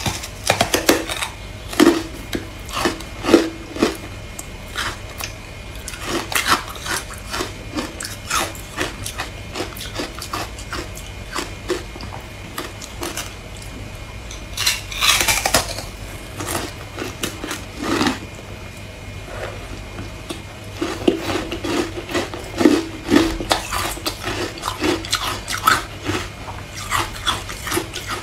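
Close-miked biting and chewing of a frozen ice block coated in matcha powder: irregular sharp cracks and crunches, with a longer, louder crunch about halfway.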